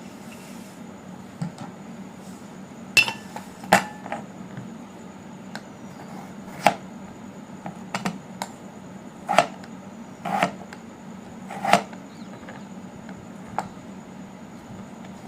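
Kitchen utensils and dishes being handled: about eight sharp knocks and clinks at irregular intervals, over a steady low hum.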